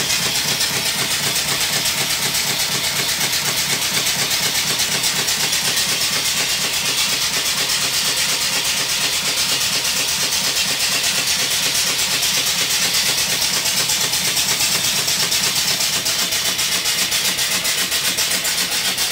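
Homemade vertical single-cylinder steam engine running fast near full throttle, its exhaust steam hissing out in a rapid, even beat. It is driving a belt-driven alternator.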